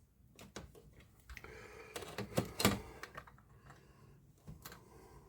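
Scattered small clicks and taps from parts of a disassembled computer monitor being handled, with two louder clicks close together about two and a half seconds in.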